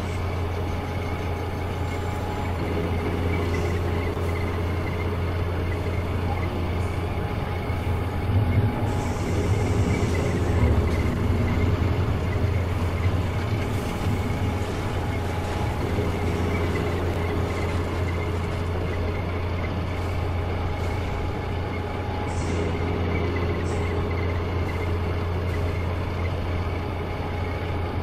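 Heavy diesel engine running steadily with a low, even sound, swelling briefly about a third of the way in.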